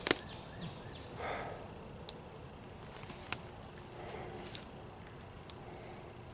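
An insect trilling in a steady high-pitched tone, stopping about a second and a half in and starting again near the end. A few light clicks and rustles are scattered through.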